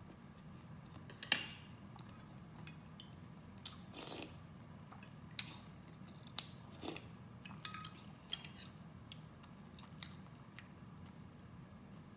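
Close-miked eating sounds from a person eating spicy rice noodles: chewing with scattered wet mouth clicks and smacks, a dozen or so, the loudest about a second in.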